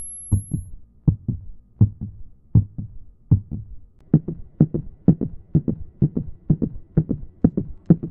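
Heartbeat sound effect: paired low thumps, lub-dub, repeating and quickening from about one beat every three-quarters of a second to about two beats a second.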